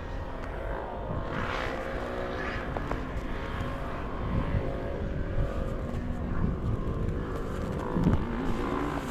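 Motorcycle engines running, their pitch wavering up and down over a steady low rumble.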